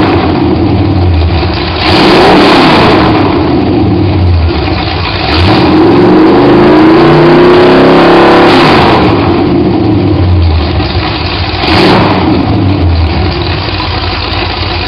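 Rebuilt Ford 302 small-block V8 running on an engine stand through open, unmuffled headers. It is revved repeatedly: a short blip about two seconds in, a longer rev in the middle lasting about three seconds, and another blip near the end, dropping back to a lumpy idle between.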